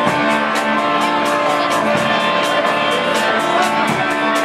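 Rock band playing an instrumental passage: guitar chords held over drums, with a steady cymbal beat of about four hits a second.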